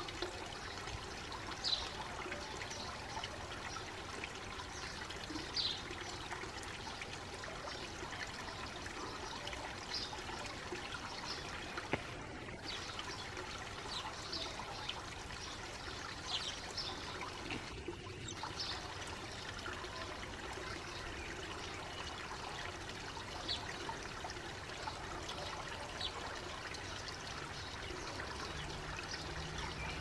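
House sparrows chirping now and then, short high chirps every few seconds, over a steady trickle of running water.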